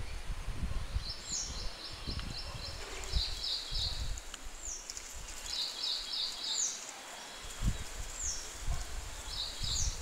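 Muscovy ducklings peeping: a high falling peep repeats every second or two, with quick runs of four to six shorter peeps in between, over a low uneven rumble.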